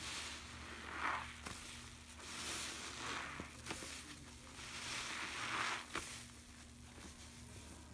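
A foam-soaked sponge squeezed and wrung by hand in a tub of soapy water: squelching with crackling, fizzing suds, in three swells a couple of seconds apart.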